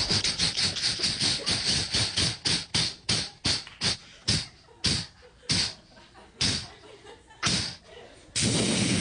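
Vocal imitation of a steam train chugging: rhythmic hissing chuffs from the mouth that slow and spread out as the train comes to a stop. About eight seconds in, audience applause breaks out.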